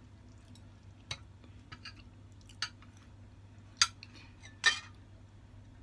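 Eating utensils clicking and clinking against a plate: about five short sharp clicks, the loudest two near the end.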